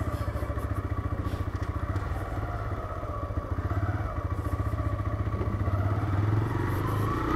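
TVS Raider 125's single-cylinder four-stroke engine running as the bike is ridden, a steady stream of rapid, even firing pulses that grows a little louder near the end.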